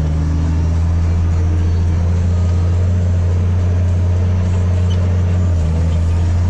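Massey Ferguson 8210 tractor's diesel engine running steadily at working speed while pulling a disc harrow, a loud, even low hum.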